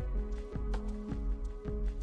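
Background music with a steady beat over sustained bass and held notes.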